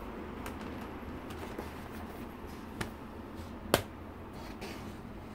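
Hard plastic snap-on shell being pressed onto a MacBook Pro: faint handling, a small click a little before the middle, then a sharp, loud snap as the shell clips onto the laptop's edge.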